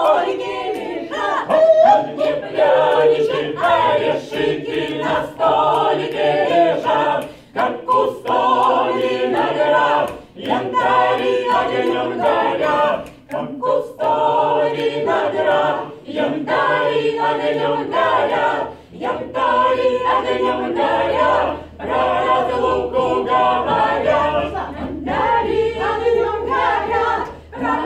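Small mixed group of men's and women's voices singing a cappella together, the phrases broken by short breaths every few seconds.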